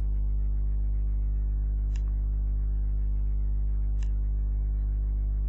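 Steady electrical mains hum, a low buzz with many overtones, picked up by the recording. Two short faint clicks come about two seconds apart.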